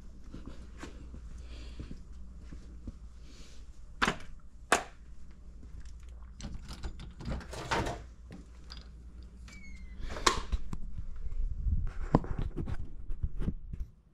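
Knocks and clatter from handling a Homelite chainsaw in a garage: two sharp knocks about four and five seconds in as the saw is set down on the concrete floor, then more scattered thumps and a door being opened near the end. A faint steady hum runs underneath; the saw's engine is not running.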